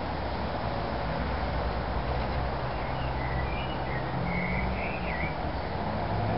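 Steady outdoor background noise with a low, engine-like rumble, and a few short high chirps about halfway through.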